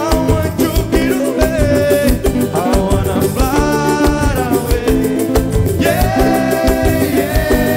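Samba band music with a busy, steady percussion beat and a held, gliding melodic line over it.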